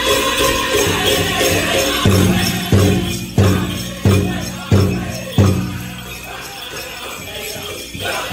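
Powwow drum and singers performing a prairie chicken dance song, with bells on the dancers' regalia jingling. About two seconds in come six hard drum beats, about two-thirds of a second apart. The sound then drops to a quieter stretch and picks up again near the end.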